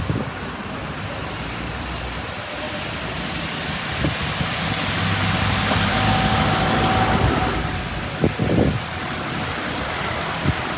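Busy city street traffic with wind: a motor vehicle's engine grows louder through the middle and then fades, over steady traffic and wind noise. A couple of sharp knocks come near the end.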